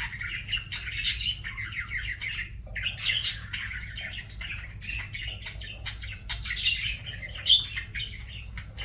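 Budgerigar warbling: a continuous, fast chattering song mixed with sharp squawks and clicks. There is a brief pause about a third of the way in, and loud sharp notes stand out near the middle and later.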